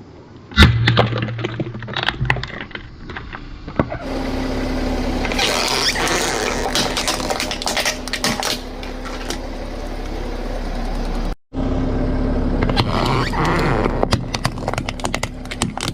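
Objects cracking and crunching under a car's tyres, with many sharp snaps over the steady hum of the running vehicle.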